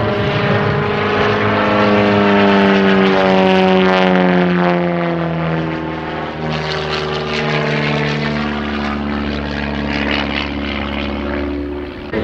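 DR-107 One Design aerobatic plane's piston engine and propeller running at display power through aerobatic manoeuvres. The engine note sags in pitch over the first few seconds and shifts lower about halfway through as power and airspeed change.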